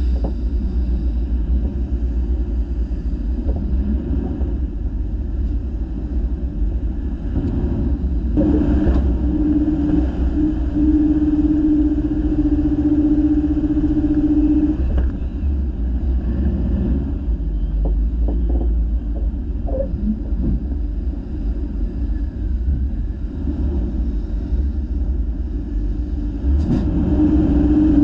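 Off-road vehicle engine running with a steady low rumble. A droning engine note holds for several seconds in the middle, returns near the end and wavers in pitch as the engine is revved.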